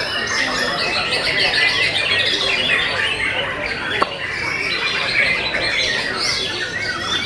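Many caged white-rumped shamas (murai batu) singing at once, a dense overlapping tangle of fast whistled phrases, with a single sharp click about four seconds in.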